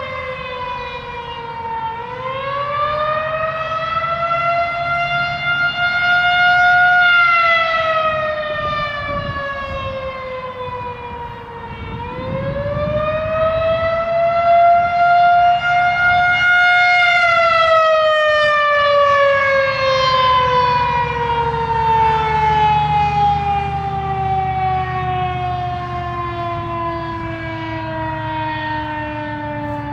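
Federal Signal 2001-130 single-tone rotating electromechanical warning siren sounding a test in a wail. Its pitch climbs and falls twice over about five seconds each way, then slides slowly down for the second half. The loudness swells and fades as the horn turns.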